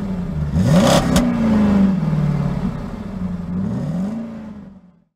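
Vehicle engine revving: its pitch climbs sharply about half a second in, with a sharp crack just after a second, sinks back, and climbs again near four seconds before fading out.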